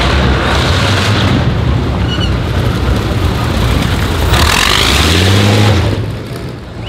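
Brutus's 47-litre BMW VI aircraft V12 engine running loud as the car pulls away and drives past. It surges with rising revs about four and a half seconds in, then drops off near the end.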